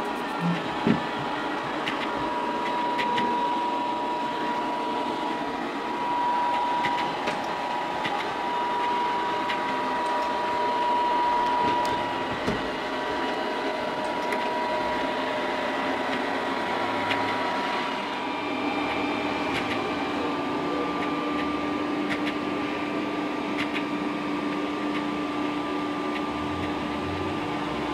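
Polaris PVCR 6001 robot vacuum cleaner running: a steady fan hum and hiss with a thin motor whine. The whine changes pitch about two-thirds of the way through.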